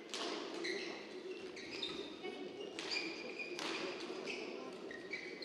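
Athletic shoes squeaking briefly on an indoor sports court floor, several short high squeaks, with a few sharp taps.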